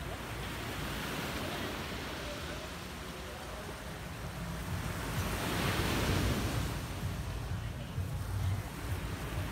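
Small waves breaking on a sandy beach: a steady wash of surf that swells to its loudest about six seconds in.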